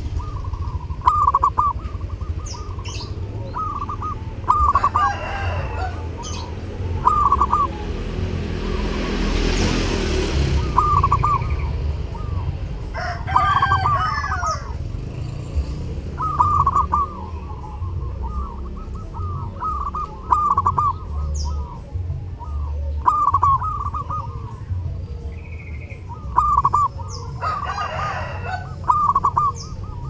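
Zebra dove (perkutut) singing its rolling cooing song, short phrases repeated every second or two over a steady low rumble. A few longer calls from other birds break in about three times.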